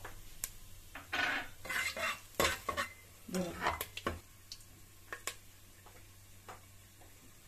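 A spoon stirring and scraping cashews and whole spices around in hot ghee in an aluminium pressure cooker, with clinks against the pot and a light sizzle of frying. The scrapes come thick and fast for about four seconds, then thin out to a few ticks.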